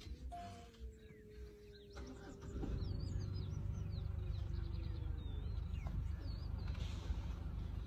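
Small birds chirping, with repeated short down-slurred calls. Under them is a low, steady vehicle engine rumble that comes up about two and a half seconds in.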